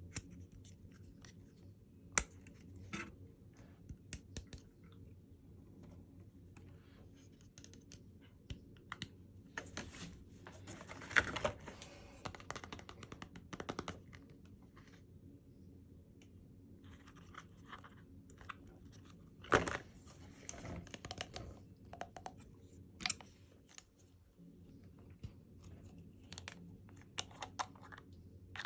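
Packaging being handled and opened by hand: scattered clicks and taps with rustling and tearing, and two longer bursts of rustling and tearing, about ten seconds in and again about twenty seconds in.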